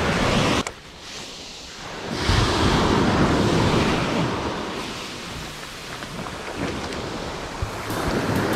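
Surf breaking and washing up a sandy beach, with wind buffeting the microphone. A wave surges in loudly about two seconds in, then eases.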